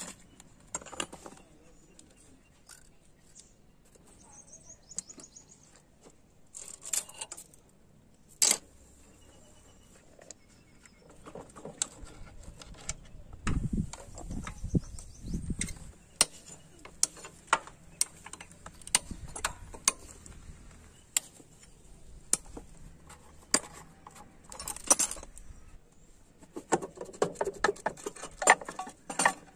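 Scattered metallic clicks, clinks and short rattles of hand tools and bolts on a Hero Honda Passion Pro engine's casing as the right-side crankcase (clutch) cover is unbolted and worked loose, with a few dull knocks in the middle.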